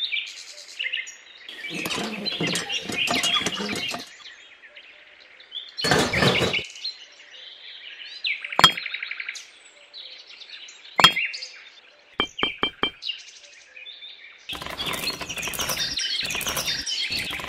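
Birds chirping in the background, with handling noises of small craft pieces: scattered knocks and sharp clicks, a run of four quick ticks, and a longer clatter of small pebbles near the end.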